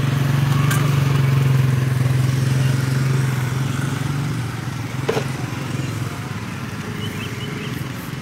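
Small motorcycle engine running close by with a steady hum that falls back to a quieter running about four and a half seconds in. A single sharp click about five seconds in.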